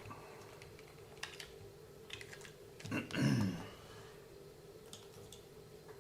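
Light clicks and taps of small plastic RC-car differential parts being handled and fitted together, a few scattered clicks over a faint steady hum, with a brief vocal sound about three seconds in.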